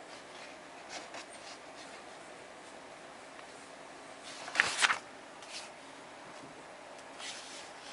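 Pages of a teacher's edition textbook being handled and turned. There is a short paper rustle about halfway through, with fainter rustles and light taps before and after it.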